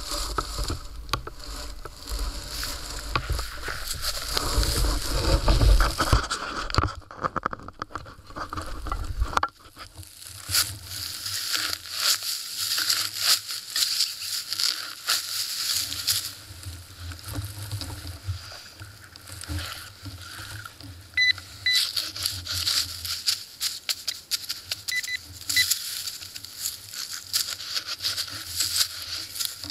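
Digging a target out of dry grass and soil by hand and with a digging tool: scraping, crackling and tearing of dry grass roots and dirt. A few short, faint electronic beeps come about two-thirds of the way through.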